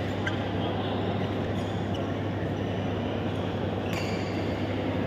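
Badminton rally in a large indoor hall: a steady din with a constant low hum, broken by a few sharp racket-on-shuttlecock hits, the loudest about four seconds in.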